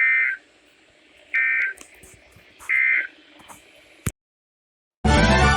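Three short bursts of EAS end-of-message data tones, each a harsh buzzy warble about a third of a second long, spaced about a second and a half apart. These signal that the alert message has ended. A click and a moment of dead silence follow, and loud music starts near the end.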